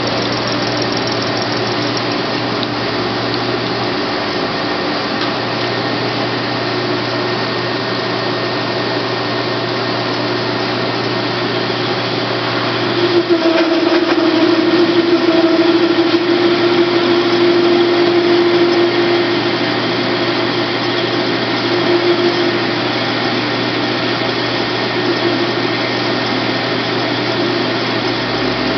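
Bolton BT0919 9" x 19" bench metal lathe running steadily under power while a drilled workpiece is cut off. About halfway through, a louder humming tone rises over the machine noise for several seconds as the cut-off tool bites, then eases back.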